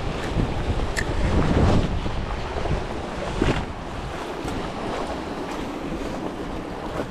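Sea waves washing onto the shore, with wind buffeting the microphone; a louder surge comes in the first couple of seconds, then it settles into a steady wash.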